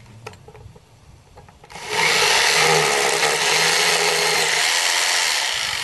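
Hammer drill with a 1/2-inch masonry bit boring an anchor-bolt hole into concrete, starting about two seconds in and running steadily, easing off near the end.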